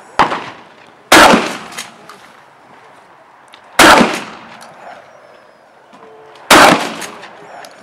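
Three loud shotgun shots, evenly spaced about two and a half seconds apart, each followed by a short ringing echo, with a fainter sharp crack just before the first.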